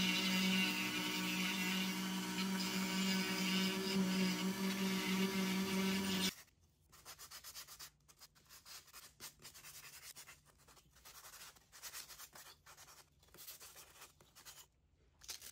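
Dremel 4000 rotary tool on its flex-shaft attachment running with a steady whine as it sands a small wooden figure. About six seconds in it cuts off, and a hand-held sanding pad follows with quieter, irregular rubbing strokes of sandpaper on wood.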